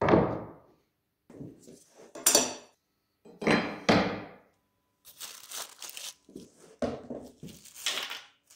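Knocks and clatter as a wooden fence and steel flat bars are set down and shifted on a plywood workbench, followed from about halfway by the crinkling of a small plastic bag being handled.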